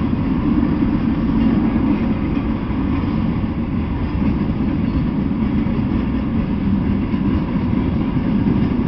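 Freight train cars rolling past: a steady low rumble of steel wheels on the rails.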